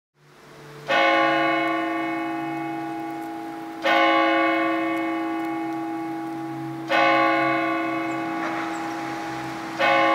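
A single bell tolling slowly: four strokes about three seconds apart, each ringing on and fading before the next.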